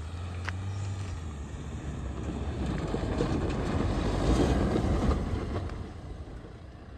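Mahindra Thar 4x4 driving across a dry dirt field and passing close by: engine and tyres on loose dirt growing louder, loudest about four to five seconds in, then fading as it pulls away.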